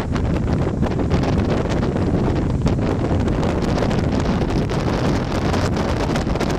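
Strong wind buffeting the camera microphone: a continuous heavy rumble with rapid fluttering gusts.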